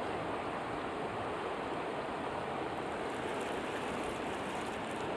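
Creek water rushing steadily over rapids.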